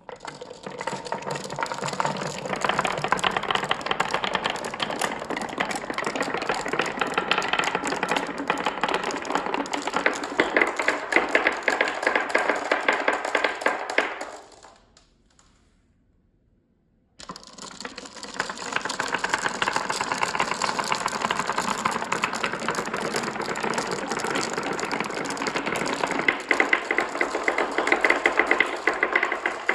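Many marbles rolling and clicking down a marble run, a dense clatter of rapid ticks. About halfway through it dies away over a second or so, and after about two seconds of quiet it starts again abruptly as a new batch of marbles sets off.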